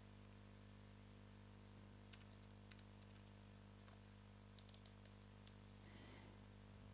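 Faint computer keyboard typing: a few scattered keystrokes in small clusters over a steady low hum.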